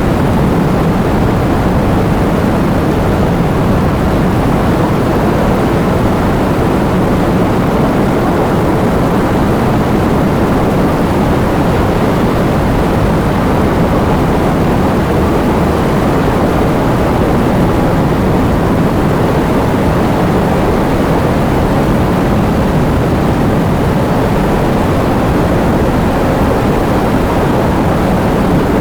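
Heavy rain with wind: a steady, dense rush of noise, deep and rumbling, with no let-up.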